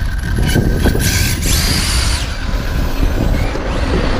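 Aerosol spray can hissing, two short spurts and then one longer spray of about a second that cuts off sharply, aimed at an RC buggy, over steady wind rumble on the microphone.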